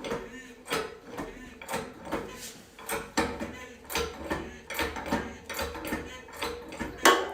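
Hydraulic shop press working as it presses a thin aluminium sheet into 3D-printed dies: a regular series of short mechanical clicks and clunks, about two a second, with a faint low hum in the middle.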